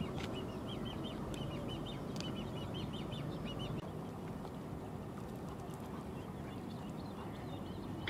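Great crested grebe chick's begging calls: a run of short, high piping notes, several a second, that fade out about four seconds in, over a low steady rumble.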